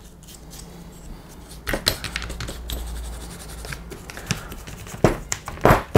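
Small stiff brush scrubbing dried mud off an RC buggy chassis: quick, irregular scratchy strokes, a little louder about two seconds in and again near the end.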